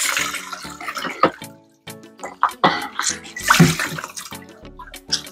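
Water sloshing and splashing as it is scooped and drained out by hand, loudest in the first second and then in scattered splashes. Music plays faintly underneath.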